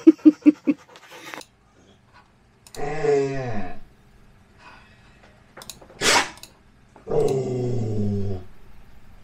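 A dog pants quickly for about a second. Then it gives two long, low grumbling whines, each about a second long with a falling pitch, with a short sharp huff between them. It is pestering its owner for attention.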